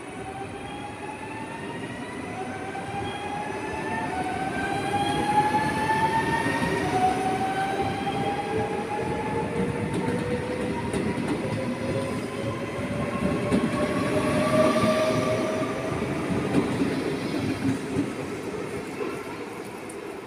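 NS VIRM double-deck electric train pulling away, its traction drive whining in several tones that rise steadily in pitch as it accelerates, over a steady rumble of the wheels on the rails.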